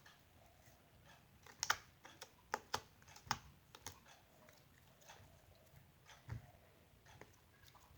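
Faint, irregular sharp clicks and pops, about eight close together in the first half and a single one later, the loudest a little under two seconds in.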